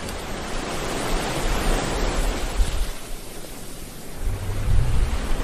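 Ocean surf washing onto a beach: a steady rushing noise that swells and eases, with low rumbling surges.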